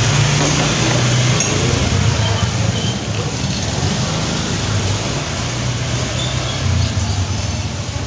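Small motor scooter engine running at low speed, a steady low hum, over the general noise of the alley.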